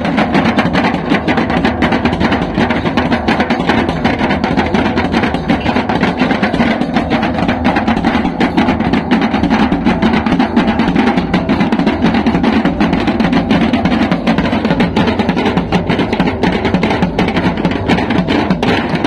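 Dayak keratukng ensemble: several long wooden drums beaten with sticks in a fast, dense, unbroken rhythm, with steady ringing tones sounding over the drumming.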